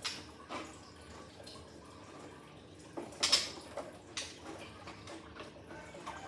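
Irregular splashes and drips of water, with the loudest short splash about three seconds in.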